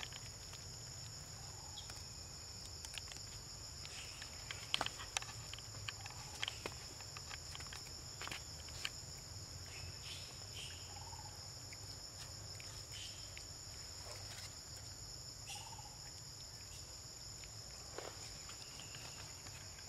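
Steady high-pitched drone of insects in the forest, held at two pitches, with scattered small clicks and taps of macaques picking up and eating peanuts on a stone.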